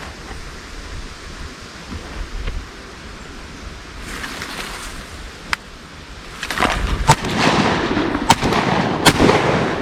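Shotgun fired three times, a little over a second apart, over a rising rush of noise from ducks flushing off the water.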